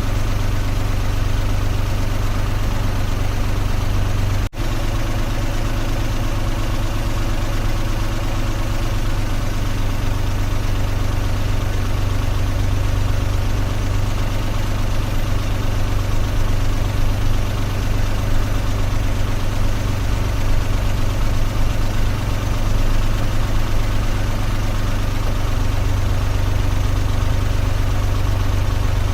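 Car engine running steadily with a low, even hum. The sound cuts out for an instant about four and a half seconds in, then carries on unchanged.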